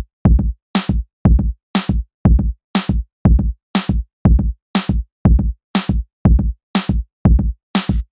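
Electronic background music: a drum-machine beat of alternating kick and snare hits, about two a second, with short gaps between.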